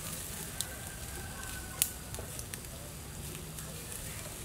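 Beef sizzling on a wire grill over a charcoal fire, with a few sharp clicks of metal tongs against the grill wire; the loudest click comes a little before the middle.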